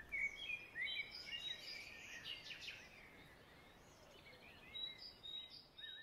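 Faint recorded forest ambience of several birds chirping and singing in short high chirps and trills, busiest in the first three seconds and again near the end. The last low note of the orchestral music dies away in the first half second.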